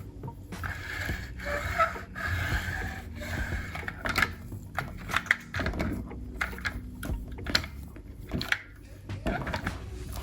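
Irregular light clicks and taps, as of small model-car parts being handled and fitted.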